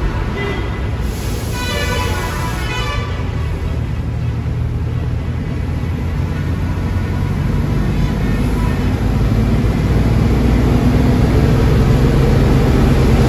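A road vehicle's engine and road noise run steadily, a low rumble that grows gradually louder. About two seconds in there is a brief voice-like or musical sound.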